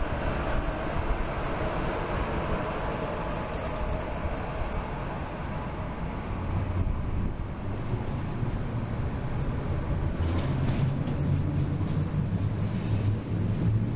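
Locomotive-hauled S-Bahn train of x-Wagen coaches pulling away from a station: the electric locomotive draws off while the coaches roll past, steady running noise with a low rumble that grows from about halfway through.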